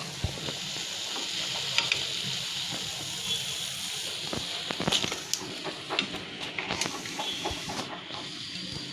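Batter-coated pea-pod fritters frying in hot oil: a steady sizzling hiss with scattered crackles and clicks as a steel slotted spoon lifts them out. The sizzle thins out near the end.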